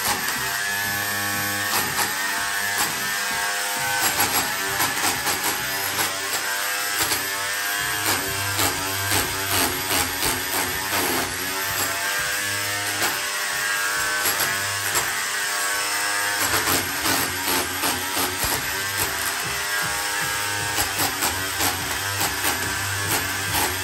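Small electric hammer with a chisel bit chipping old plaster off a brick wall: the motor hums in runs of a second or two, with many sharp knocks as plaster breaks away.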